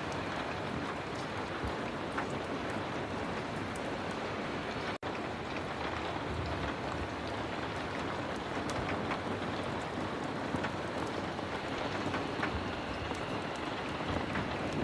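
Heavy rain falling steadily, with scattered small ticks through it and a momentary dropout about five seconds in.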